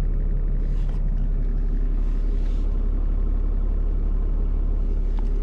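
Ram pickup's diesel engine idling steadily, heard from inside the cab as a low, even rumble.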